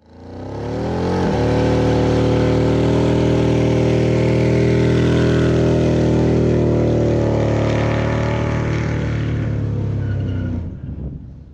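Ford Lightning pickup's V8 running through its custom stainless exhaust. The pitch rises about a second in, then holds steady at constant revs, and the sound fades out near the end.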